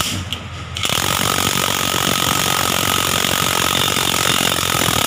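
Cordless impact wrench hammering on the top nut of a car's front strut, tightening the strut mount onto the shock absorber rod. A brief run at the very start, a short pause, then one long steady run of hammering.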